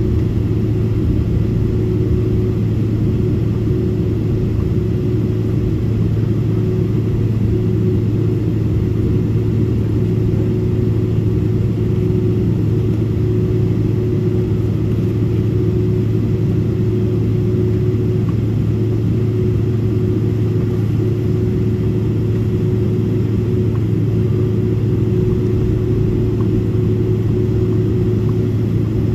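Cabin noise of a Boeing 767-400ER taxiing with its turbofan engines at idle: a steady low drone with a steady mid-pitched tone above it.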